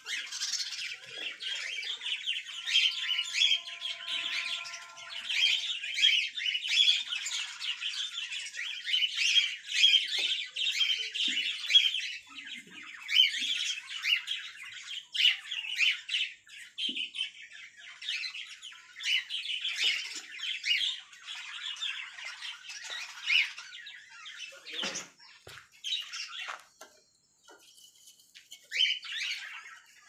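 Lovebirds chattering with a rapid, shrill squawking that runs almost without a break, thinning out to scattered calls in the last few seconds.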